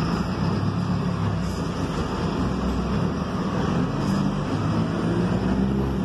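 Mercedes-Benz diesel engine of an Ayco Zafiro city bus running as the bus moves off, heard from inside the cabin; its low, steady note grows stronger in the second half.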